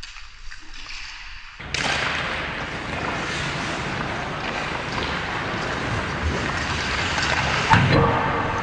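Ice hockey play close to the goal: skates scraping on the ice and sticks clicking, starting suddenly about two seconds in. Near the end a loud thump as a shot on goal strikes.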